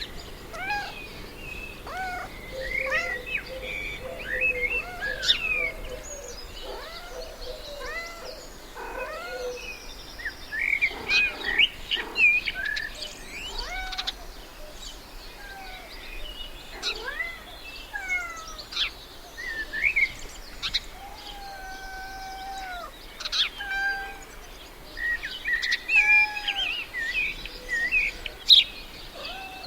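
Birds chirping and calling: many short whistled notes that rise and fall, with a few longer held whistles, overlapping without pause.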